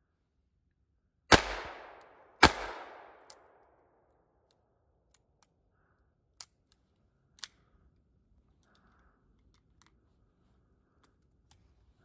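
Two .22 LR pistol shots from a GSG Firefly about a second apart, each with a short echoing tail, followed several seconds later by two faint mechanical clicks. Only two rounds went off before the pistol failed to feed.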